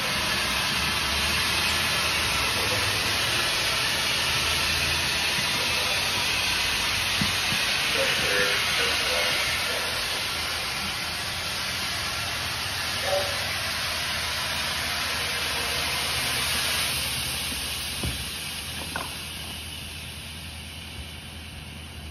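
Compressed air hissing steadily from the NRS ASR 155 inflatable rescue boat as its tube fills, the pressure relief valve blowing off at 4 psi: the sign that the tube is full. The hiss drops and fades over the last few seconds.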